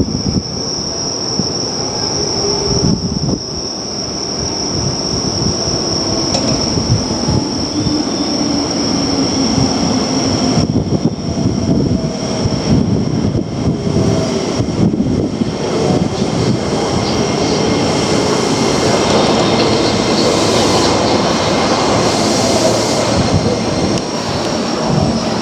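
Keio Line electric train running on the rails, with continuous wheel-and-track noise and slowly gliding mid-pitched tones. A steady high-pitched tone sits over it, and the sound grows a little louder over the second half.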